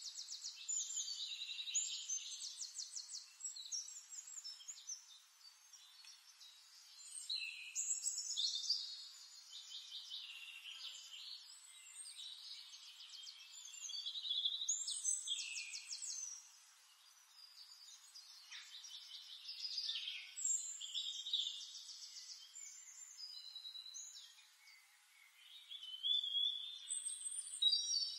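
Songbird singing in long phrases of rapid high trills and chirps, with short pauses between phrases.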